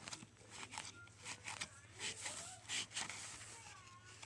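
Slime being squished and worked in the hands, making irregular wet squelches with a few short squeaks.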